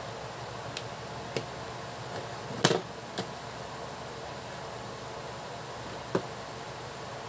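A few brief knocks and taps as an engine control unit in its plastic housing and a soldering iron are handled on a workbench, the loudest about two and a half seconds in, over a steady background hiss.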